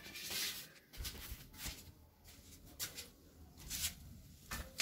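Faint scattered rustling noises, about six short soft bursts, over a faint low rumble.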